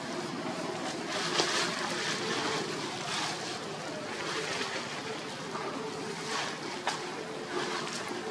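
Plastic bag and dry leaves rustling and crinkling as macaques rummage in the bag, with a few sharper crackles. A faint steady hum sits underneath.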